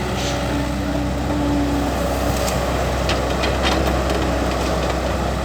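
Caterpillar E120B hydraulic excavator working, its diesel engine running steadily, with a few sharp knocks from the machine partway through. The engine bogs slightly under load, which is put down to a poor diesel injection pump or to the engine growing weak, as it already burns about a litre of engine oil a day.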